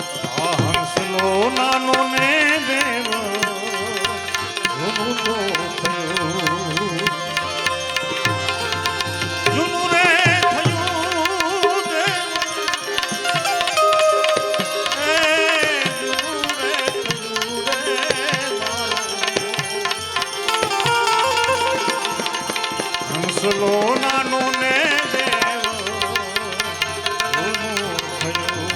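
Devotional bhajan music: a tabla beat under a wavering melody line, played continuously.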